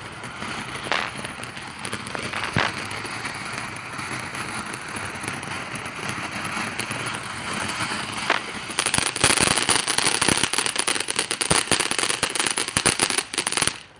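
A small crackling firework burning: a steady fizzing hiss with a few scattered pops, then about nine seconds in a dense burst of rapid crackling for about five seconds that cuts off suddenly.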